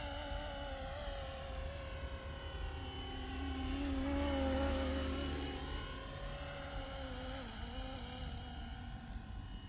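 Electric Flywing RC helicopter in an MD 500 body with a two-bladed main rotor flying past, a steady motor-and-rotor whine. It grows louder about four seconds in as the helicopter passes close, then fades as it moves away.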